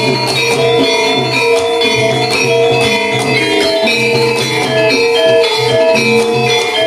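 Gamelan ensemble playing a steady, rhythmic piece, with repeated metallophone notes ringing over a pulsing low beat.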